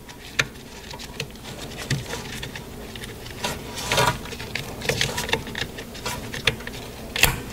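Hands working a new ABS wheel speed sensor's wiring and plastic connector into place at the vehicle harness: scattered light clicks, taps and rustling, with a sharper click shortly after the start and another near the end.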